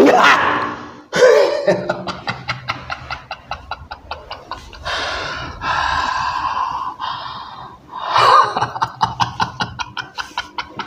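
A man's rapid, breathy laughter in quick pulses about seven a second, mixed with hissing gasps, with a short cry just over a second in and another about eight seconds in. He is in a trance that the healer treats as a jinn speaking through him.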